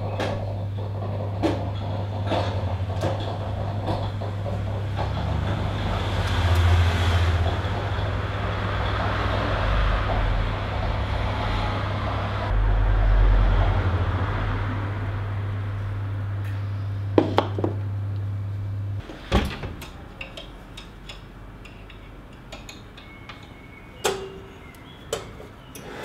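Milk foam poured from a jug into a glass mug, over a steady low hum that cuts off suddenly about three-quarters of the way through. A few sharp knocks and clicks of kitchen handling follow.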